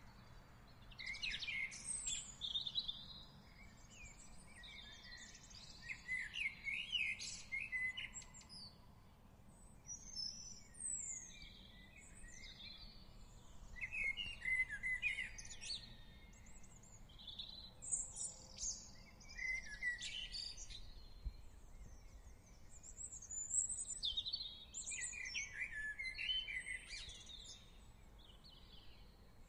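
Several songbirds singing and chirping in short, quick phrases, one after another with brief gaps, over a faint low background hum.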